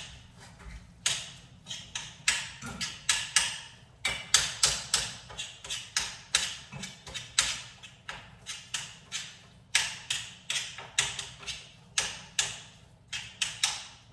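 A utensil striking and chopping at ground meat in a pan: repeated sharp taps, about three a second in short runs, as the still-red meat is broken into small crumbles while it browns.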